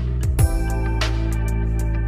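Instrumental background music: sustained held tones with a couple of short percussive hits about a third of a second in.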